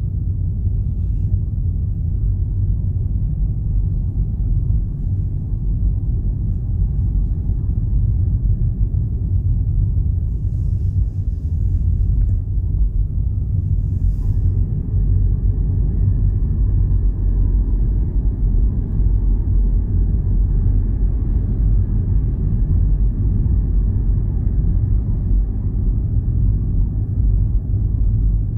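Steady low-pitched rumble with no distinct events, with a faint brief hiss about ten and fourteen seconds in.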